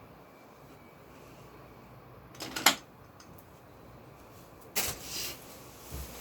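Two brief clattering knocks, the first short and sharp about two and a half seconds in, the second longer about five seconds in, then a soft low thump near the end.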